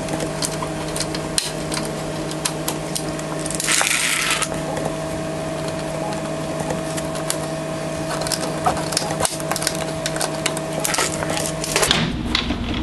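Hand pop-rivet tool clicking and snapping as pop rivets are set through the plastic side sill of an EZGO TXT golf cart, with a brief rush of noise about four seconds in and a faint steady hum underneath.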